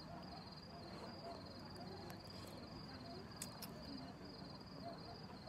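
Crickets chirping in an even, pulsing trill, faint and steady, with a couple of short sharp clicks about three and a half seconds in.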